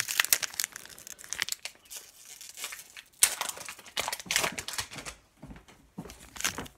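Wrapper of a Panini Prizm basketball card pack crinkling and tearing as it is ripped open, in a run of short, irregular crackles.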